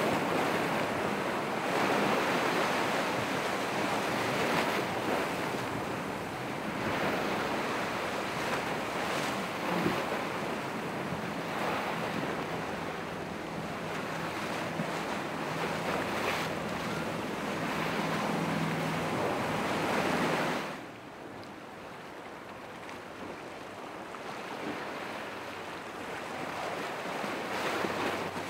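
Surf breaking in a rough inlet with wind buffeting the microphone, over the faint steady hum of a boat engine. About three-quarters of the way through the sound drops abruptly and turns duller, and the engine hum stops.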